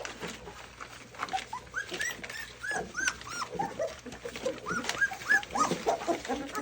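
A litter of young puppies squeaking and whimpering over one another while eating their first solid meal from a shared bowl, with small clicks of eating underneath. The squeaks are short and high, many in quick succession.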